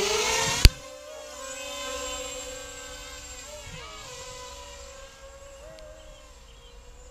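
Blackout 330 FPV quadcopter's brushless motors and propellers spooling up in a rising whine as it takes off, broken by a sharp click under a second in. Then a fainter, steadier propeller whine as the quad flies off at a distance, its pitch wobbling with the throttle about halfway through.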